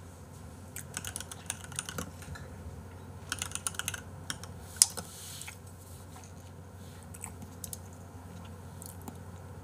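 Typing on a computer keyboard: two short runs of quick key clicks, then one sharper click about five seconds in.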